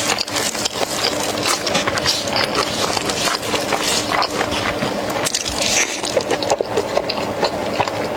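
Chewing and gnawing on braised lamb ribs: a dense, irregular run of small clicks.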